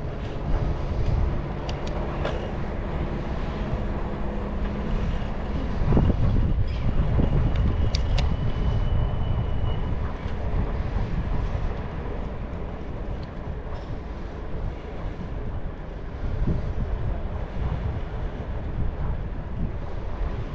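Steady low rumbling noise of a bicycle ride, with scattered clicks and a thin high whine from about seven to ten seconds in.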